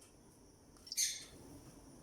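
A lovebird gives one short, shrill chirp about a second in.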